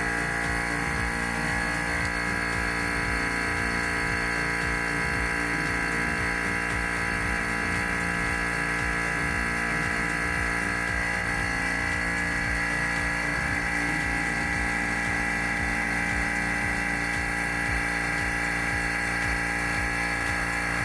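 Electric vacuum pump running steadily, pumping down a vacuum chamber: a constant hum with a whine over it and a low pulsing underneath.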